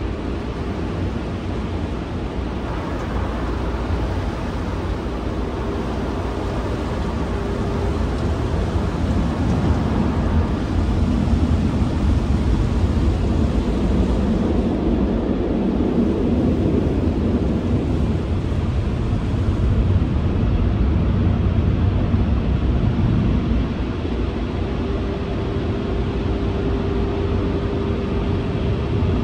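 Automatic car wash heard from inside the car's cabin: water spraying and brushes working over the body over a steady low rumble, loudest in the middle. A faint steady hum sounds in the first few seconds and again near the end.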